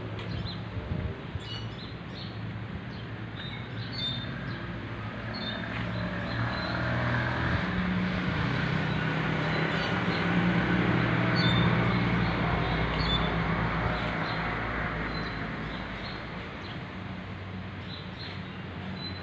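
A road vehicle passing, its engine hum and tyre noise swelling to a peak about halfway through and fading away, while small birds chirp in short high calls throughout.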